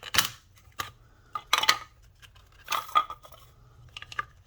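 Hard plastic clicks and knocks from a Black & Decker string trimmer's head as its spool cap is worked back into place, a handful of irregular sharp clatters.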